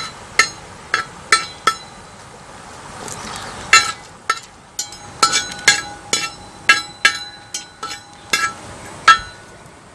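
Perforated steel skimmer spoon clinking and scraping against a wide metal uruli pan while stirring whole spices in oil, in irregular sharp knocks about two a second. The pan rings on after some strikes, one tone held for several seconds in the second half.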